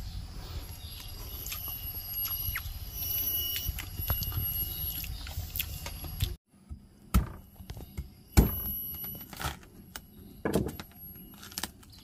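A machete blade chopping into a durian's spiky husk: about five sharp knocks roughly a second apart, the loudest a couple of seconds after they begin. Before them there is a steady low noise with a faint high whine, which cuts off suddenly.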